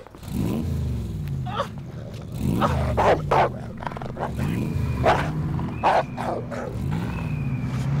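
A large dog growling, a low, continuous rumble that wavers up and down in pitch, with several short sharp sounds over it.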